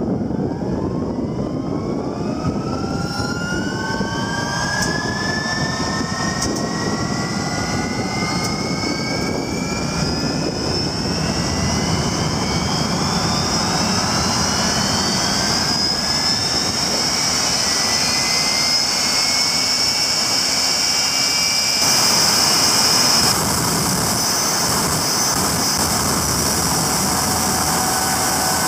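Rolls-Royce Viper 535 turbojet spooling up: a loud roar with a whine that rises steadily in pitch for about fifteen seconds, then holds at high revs. A brief louder surge comes about two-thirds of the way through.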